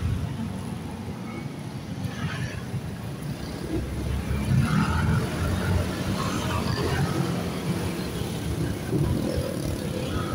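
Motorcycle engine running steadily at cruising speed, with road and wind noise, heard from a moving motorcycle in traffic.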